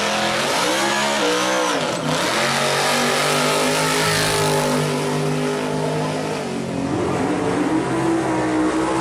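Supercharged V8 of a first-generation Camaro drag car launching off the line and running at full throttle down the drag strip. The engine pitch climbs, drops sharply at a gear change about two seconds in, climbs again, and drops at a second shift after about six and a half seconds.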